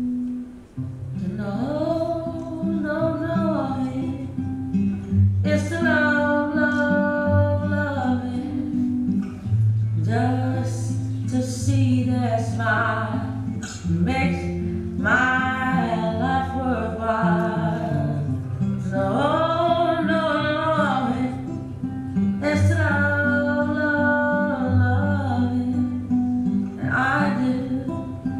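A song with a singing voice over guitar accompaniment, sung in phrases of a few seconds with short breaks between them.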